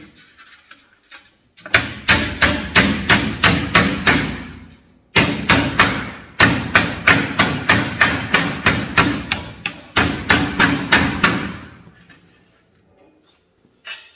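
Wooden mallet rapidly knocking a sheet-metal balcony cover down onto its wooden balcony board, about four sharp blows a second in three runs, stopping about twelve seconds in.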